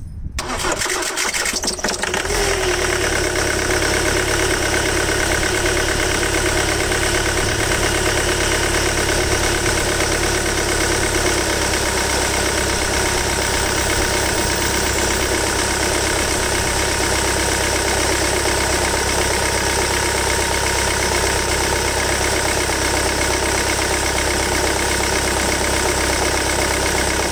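Jaguar X-Type 2.0 diesel engine (Ford 2.0 TDCi) being cranked by the starter for about two seconds, then catching and settling into a steady idle. This is its first start after a rebuilt injector was refitted.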